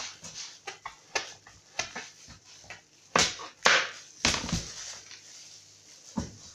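Raw pumpkin slices and a kitchen knife knocking and scraping on a plastic cutting board in irregular taps, with a few louder scrapes about three to four and a half seconds in.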